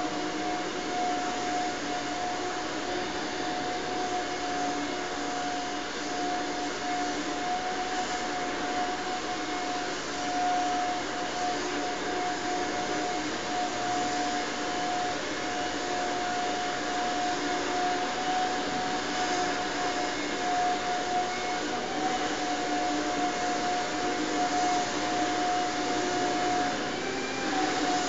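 A steady whirring drone with a constant high hum over it, unchanging throughout and covering any voices from the stage; the hum wavers in pitch briefly near the end.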